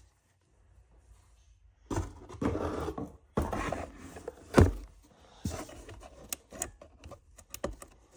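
Handling noise of objects being moved about: two stretches of rubbing and scraping starting about two seconds in, a sharp knock a little past halfway, then a scatter of light clicks and taps.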